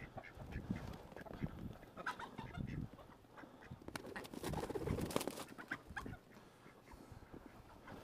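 Chickens squawking and clucking as the roosters are chased around the pen, with a burst of scuffling and rustling about four to five seconds in.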